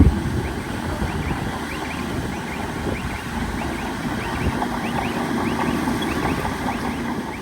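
Heavy earthmoving machinery, a bulldozer, running with a steady low rumble. There is a knock right at the start, and a run of short, high squeaks about three seconds in.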